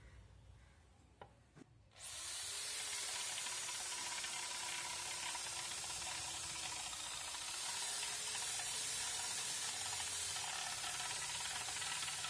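An electric drill starts about two seconds in, after a couple of faint clicks, and runs steadily while its bit bores into the wall of a flower pot. The motor's pitch sags briefly around seven seconds in as the bit takes load, then recovers.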